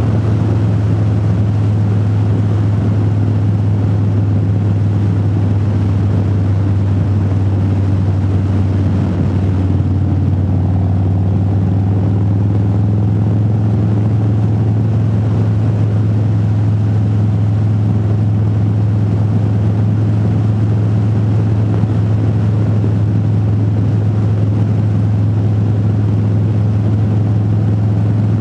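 Motorcycle engine running steadily at cruising speed, heard from the rider's helmet, as a constant low drone with no revving or gear changes.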